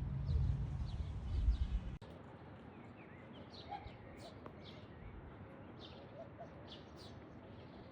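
Small birds chirping in short, scattered calls. For the first two seconds a loud low rumble, like wind on the microphone, covers them, then it cuts off suddenly.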